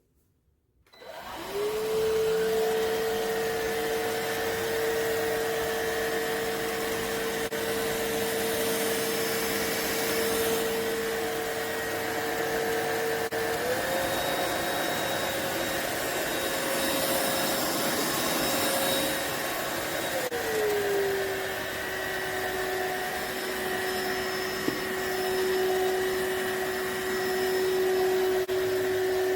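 iwoly C150 cordless stick vacuum switched on and running, its motor spinning up within a second to a steady high whine over a rush of air. About 13 seconds in the whine steps up to a higher pitch, and about 20 seconds in it drops to a lower pitch than at the start.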